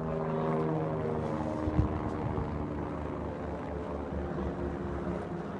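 A motor engine running, its pitch slowly falling, with a sharp click about two seconds in.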